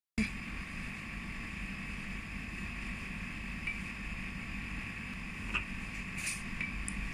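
A few light clicks of small metal hand-stop mounting hardware being picked up and handled, about four seconds in and again between five and a half and seven seconds, over a steady background hum.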